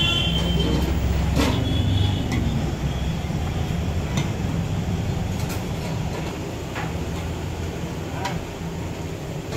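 Low, steady rumble of road traffic or a nearby vehicle engine, easing off near the end, with light clinks of steel serving utensils and plates.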